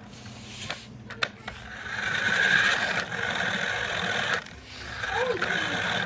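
Small electric motor of an RC car whirring steadily, with two sharp clicks before it starts. The whine dips briefly about four and a half seconds in, then picks up again.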